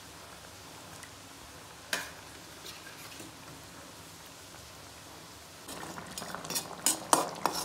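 Curry frying in a pan with a steady sizzle. A single clink about two seconds in, then from near the end a utensil stirring and scraping in the pan with several sharp clinks.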